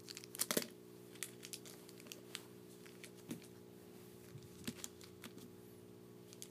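Scattered light clicks and crinkles of cigars being handled, with a small cluster about half a second in, over a faint steady hum.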